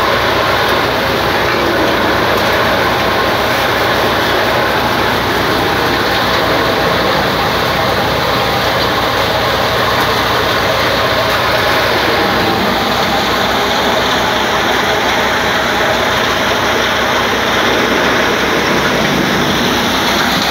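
Heavy engine-driven machinery running steadily and loudly, with a fast, even low throb underneath a dense mechanical din.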